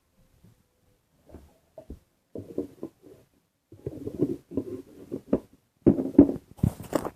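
Irregular rustling and knocking of hands handling blind-bag packaging and small toys, growing busier from about two seconds in, with a brief crackly hiss near the end.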